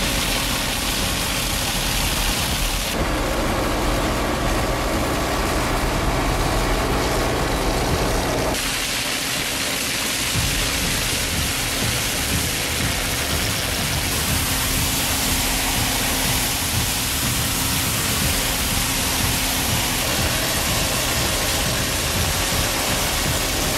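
Compact tractor's engine running while its front-mounted rotary weed brush spins and scrubs along the paved edge, a steady noisy whir with a brushing hiss. The sound changes abruptly about 3 s and again about 8.5 s in.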